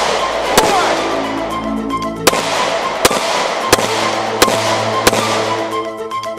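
Pistol shots, six of them at uneven intervals over about five seconds, each with a trailing echo, heard over background music.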